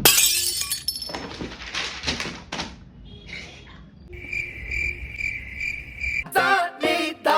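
Cricket chirping, the comedy 'awkward silence' sound effect: a steady run of about five even chirps lasting about two seconds, a little past the middle. It follows a loud, sudden noise at the start, and music with singing cuts in near the end.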